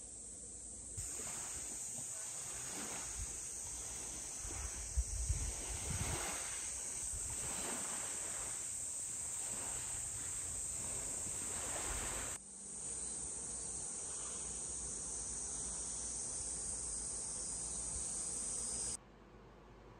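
A cicada chorus buzzing steadily and high-pitched. A few low thumps come about five seconds in, and the buzz drops away abruptly near the end.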